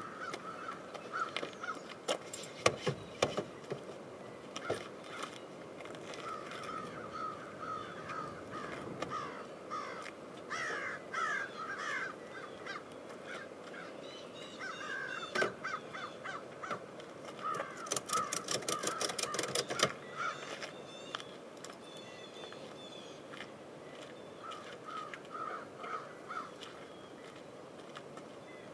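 Crows cawing in repeated series, over scattered knocks and clicks from a kayak being handled on a sliding roof rack. About two-thirds through comes a quick run of clicks, about six a second, for two seconds.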